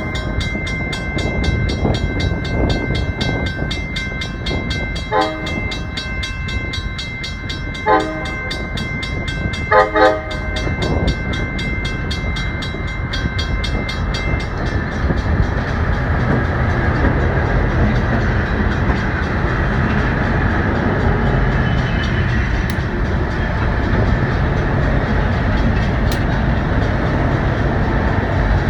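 Railroad crossing bell ringing rapidly, with short horn blasts from the lead diesel locomotive about five, eight and ten seconds in. From about halfway the bell gives way to the steady low rumble of a string of diesel work locomotives passing close by.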